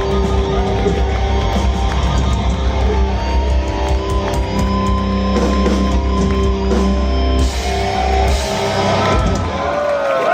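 Live metalcore band playing heavy distorted electric guitars, bass and drum kit. About eight seconds in the heavy low end stops and the last notes ring out.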